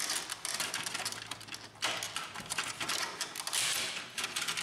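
Hard plastic clicking and rubbing as a Canon inkjet printer's control panel is worked free of its housing by hand, with two longer scrapes about two and three and a half seconds in.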